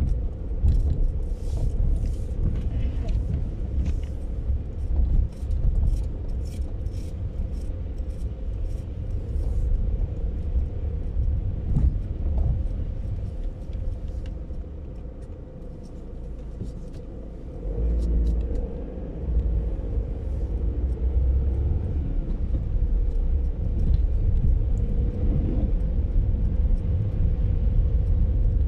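Car driving slowly on a snow-covered road, heard from inside the cabin: a steady low rumble of engine and tyres on snow, with scattered light clicks.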